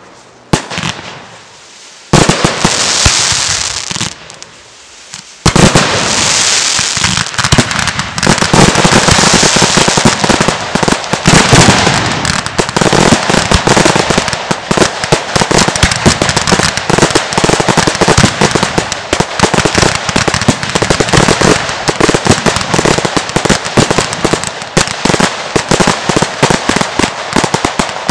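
Fireworks display: after a quiet start and a brief hiss, a dense barrage of rapid bangs and crackling sets in about five seconds in and keeps going without a break.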